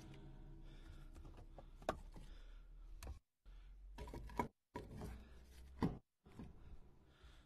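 Split firewood pieces knocking against one another as they are set by hand onto a stack in a pickup truck bed: a few faint, sharp wooden knocks a second or so apart.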